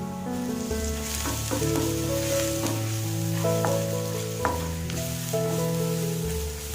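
Food sizzling as it fries in a pan, starting about a second in, with scattered clicks of a spoon stirring. Background music with long held notes plays throughout.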